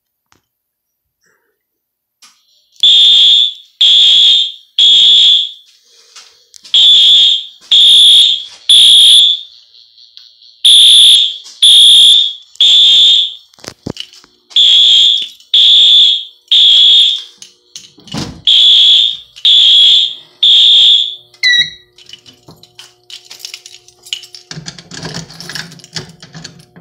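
Wheelock AS horn strobe, set to low volume, sounding the temporal code 3 evacuation pattern after the pull station is pulled. It starts a couple of seconds in and gives five sets of three horn blasts, each set followed by a pause. It stops about 21 seconds in, leaving faint hums and handling noises.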